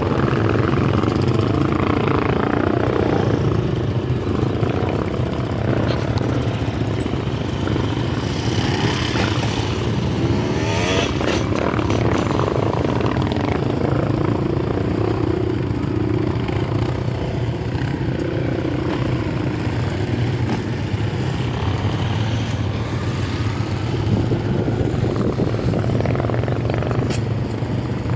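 Several quad bikes running across a hillside at a distance, their engine note rising and falling as they ride.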